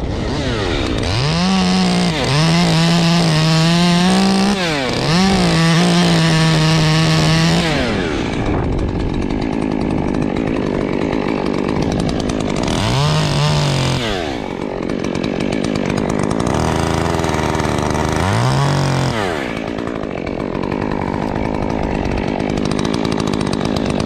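Muffler-modded Stihl top-handle two-stroke chainsaw cutting a notch into a birch limb. It revs up and holds high revs under load for about seven seconds, drops back to idle, then gives two shorter bursts of throttle with idling between.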